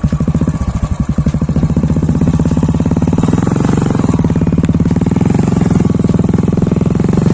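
Royal Enfield single-cylinder motorcycle engine idling with an even, rapid thump just after starting, then pulling harder about three seconds in as the bike moves off.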